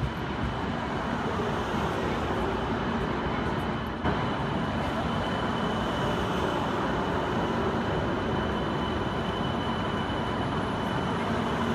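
CRH high-speed train at a station platform: a steady running noise with a faint, steady high whine, a little louder from about four seconds in.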